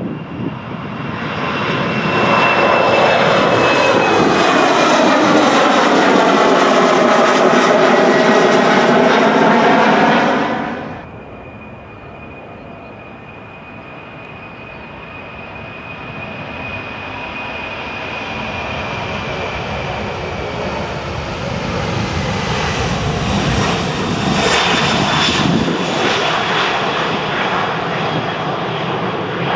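Jet airliner engines, loud as the plane passes close, with a high whine that slowly drops in pitch. The sound cuts off abruptly about ten seconds in. A second jet airliner's engines then build up gradually, growing louder with a steady high whine.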